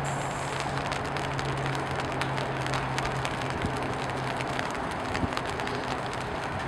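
Steady outdoor background noise with a low hum that stops about four and a half seconds in, and scattered faint clicks.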